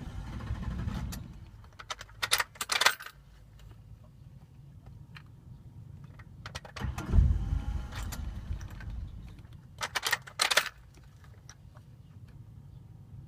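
Ford Explorer 4.0 V6 idling roughly, its low running note surging heavily twice, each surge followed by a short burst of metallic jangling. This is the rough idle that comes from low fuel pressure, 2.2 bar instead of the needed 4, caused by broken fuel lines inside the tank.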